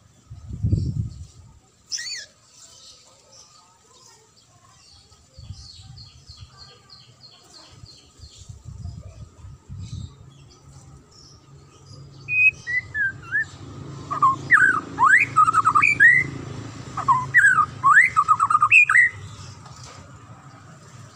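White-rumped shama (murai batu) singing loud, clear whistled phrases with rapid rising and falling sweeps, in a run of bursts through the second half. A low thump comes about a second in, and faint high chips follow a few seconds later.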